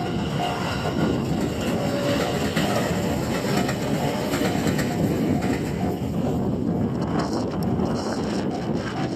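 Train running past on the rails, a steady dense rumble of wheels on track.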